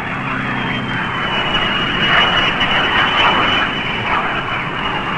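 F-4 Phantom II's twin General Electric J79 turbojets running on the ground: a steady rushing roar with a high, near-steady turbine whine over it.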